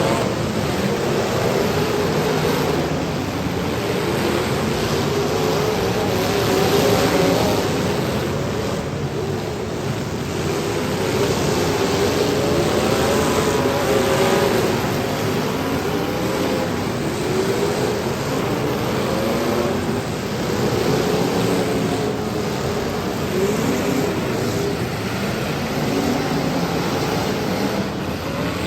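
Several demolition derby car engines running and revving at once, their pitch rising and falling unevenly over a heavy layer of engine and exhaust noise.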